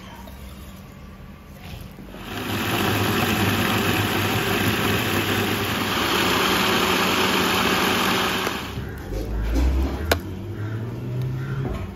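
Electric blender grinding chopped red chillies into a chilli paste: the motor starts about two seconds in, runs steadily for about six seconds, then stops. A sharp knock follows about a second later.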